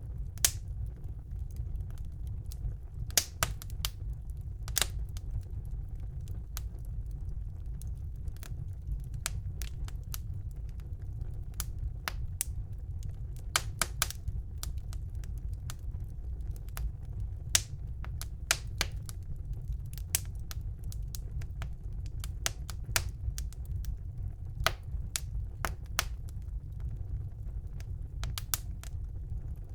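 Wood fire burning in a fireplace: a steady low rumble of the flames with irregular sharp crackles and pops, a few coming in quick clusters.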